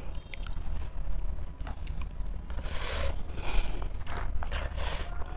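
Eating sounds close to the microphone: chewing and mouth noises with small clicks, and two short hissing bursts, one about halfway through and one near the end, over a steady low hum.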